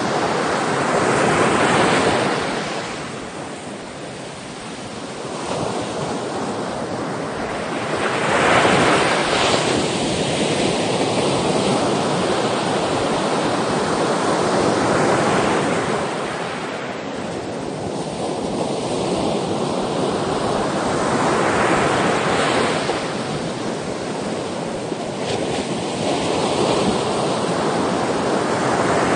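Ocean surf: waves breaking and washing in, each one swelling up and fading, about every six to seven seconds.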